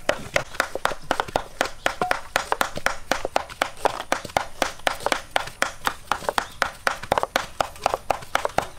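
Knives chopping on wooden cutting boards: rapid, irregular sharp knocks, about five or six a second, as wood apple is cut up.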